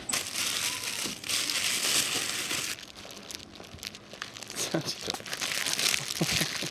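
Crinkling and rustling, in two spells of a second or so: one about a second in and another near the end.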